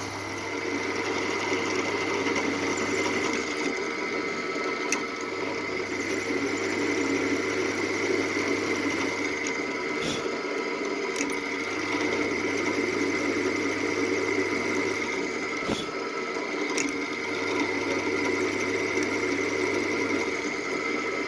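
A small motor running steadily, with a high whine and a low hum that cuts in and out several times, and a few sharp clicks.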